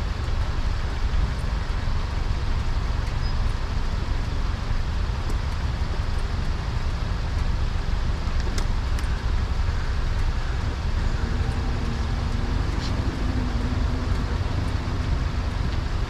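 Steady wind rumble and road noise from a moving motorcycle, with the engine faintly audible beneath it.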